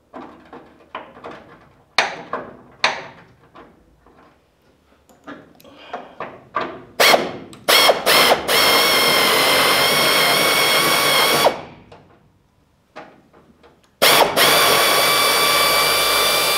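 Pneumatic air ratchet on a rusted truck bumper bolt. After some clicks of the socket being fitted, it gives a few short blips about seven seconds in, then runs with a steady whine for about three seconds, stops, and runs again for the last two and a half seconds, working the bolt loose.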